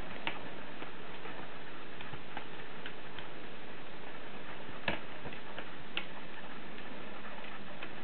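Scattered light clicks and ticks over a steady hiss, the loudest about five seconds in and another a second later: a dog's claws ticking on a wooden floor as it walks about.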